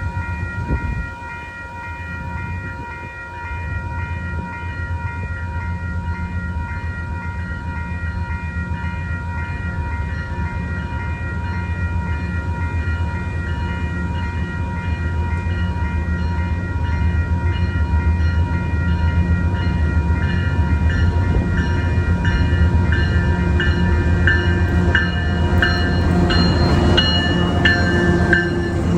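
A train running, with a deep steady rumble that slowly grows louder. Several steady high-pitched tones are held over it, and over the last several seconds a rapid metallic clatter joins in.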